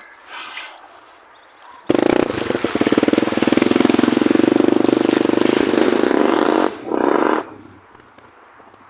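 Honda Tornado 250 dirt bike's single-cylinder engine running loud and close, with a rapid even firing beat; it starts abruptly about two seconds in, cuts off about two seconds before the end, then comes back briefly in a short burst.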